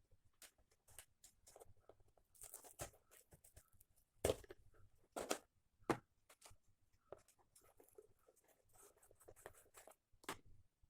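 Faint irregular handling noises while building something by hand: rustling, scraping and scattered clicks, with a few sharper knocks, the loudest about four seconds in and three more at about five, six and ten seconds.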